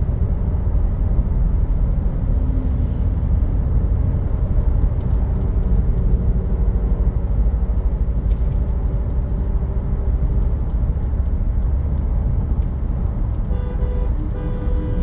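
Steady low engine and road rumble from a 2015 Land Rover Discovery Sport being driven on a road test. A vehicle horn honks near the end.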